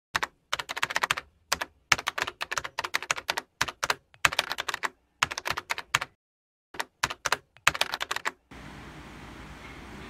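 Keyboard typing sound effect: runs of rapid clicking keystrokes broken by short silent pauses, stopping about eight and a half seconds in. Faint steady room noise follows near the end.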